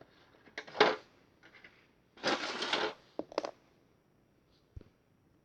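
Glue and slime activator being stirred and scraped in a small container: a few clicks and knocks, and a scraping sound of nearly a second about two seconds in.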